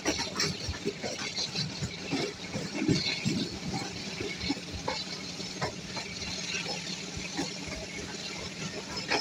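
Train running at low speed, heard from an open coach door: irregular clicks and knocks from the wheels over the track, over the steady low drone of the Hitachi diesel locomotive pulling hard under a load of about 480 tonnes.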